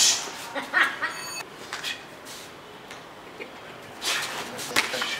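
Boxing sparring: gloved punches and sharp hissing exhalations in short bursts, one at the start, a few just under a second in, and a cluster of them about four to five seconds in.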